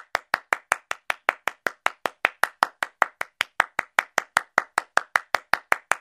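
One pair of hands clapping steadily and evenly, about five claps a second.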